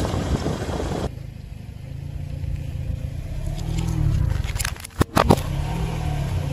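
Car tyre crushing cardboard juice cartons, a dense crackling over the car's engine hum that cuts off about a second in. Then the engine hum alone, and an aluminium drink can crushed under the tyre with two sharp cracks about five seconds in.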